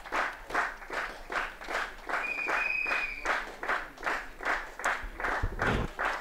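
Spectators clapping together in a steady rhythm, about three claps a second. A high steady tone sounds for about a second near the middle, and a low thud comes near the end.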